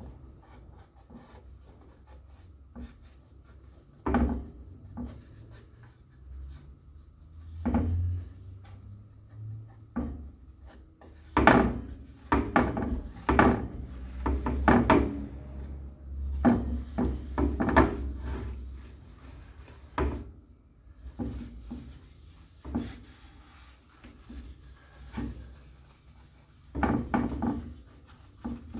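Hardwax oil being rubbed by hand into a walnut board, in irregular rubbing strokes with wooden knocks and scrapes as the board shifts on the work surface; the rubbing is busiest in the middle stretch and again near the end.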